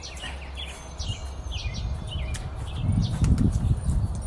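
Birds chirping, many short downward-sliding calls in quick succession, over a low rumble that grows louder after about a second and is loudest near the end.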